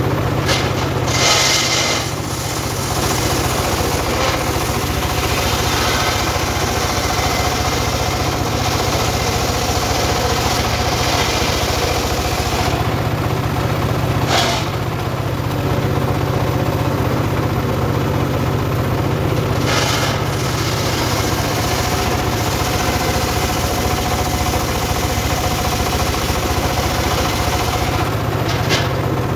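Homemade engine-driven circular saw bench running steadily while its blade rips a log lengthwise. The cutting noise stops briefly about halfway through and again near the end, when the log is lifted back for the next pass, leaving only the engine running.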